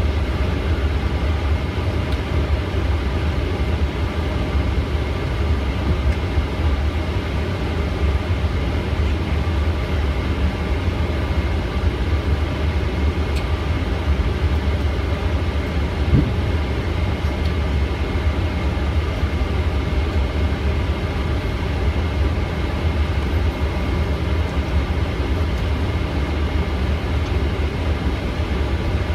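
Steady noise inside a taxiing Boeing 777: a deep low rumble under a constant whine from the idling engines and air systems. One short knock sounds about halfway through.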